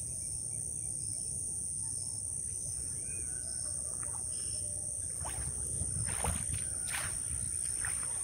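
Wind rumbling on the microphone under a steady high hiss, with a few short water splashes and drips from about five seconds in as a wet cast net is gathered up in the lake.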